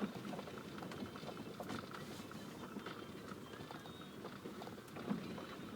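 LADA Kalina driving over a rough road, heard from inside: steady rumbling road noise with many small, irregular knocks and rattles, a slightly stronger knock at the start and another near the end. This is the test drive of a freshly rebushed and greased steering rack, which the owner finds no longer knocks.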